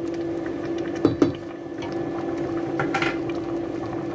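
Pot of mung bean soup bubbling at a boil while a wooden ladle stirs it, the ladle knocking twice against the stainless steel pot about a second in. A steady low hum runs underneath.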